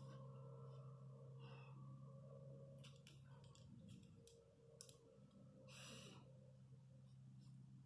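Near silence: a faint steady hum with a few faint short hisses, the clearest about six seconds in.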